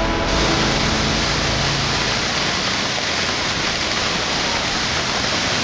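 Waterfall pouring steadily: a dense, even rushing of falling water.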